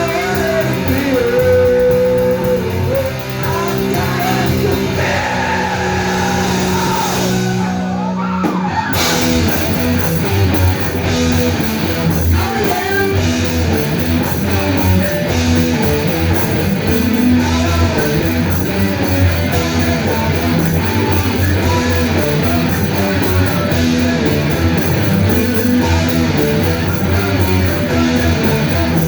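Live rock band with electric guitars and bass playing loudly. Held, ringing notes sound for the first several seconds, then about eight and a half seconds in the full band cuts into a dense, driving section.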